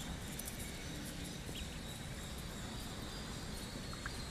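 Faint background of a shed full of young laying-breed ducklings, with a few soft, scattered peeps over a steady low noise.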